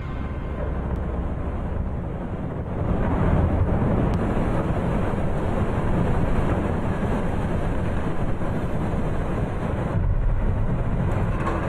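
Snow and air pouring through the torn, air-supported fabric roof of the Metrodome onto the field: a steady low rushing noise that grows louder about three seconds in.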